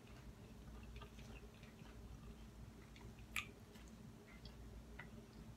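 Near silence: faint soft clicks and rustles of baby spinach salad being tossed by hand in a glass bowl, with one sharper click about three and a half seconds in.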